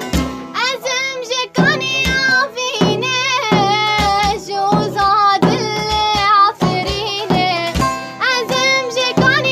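A girl singing a sad Kurdish song in a wavering, ornamented melody over a drum beat; the voice comes in about half a second in.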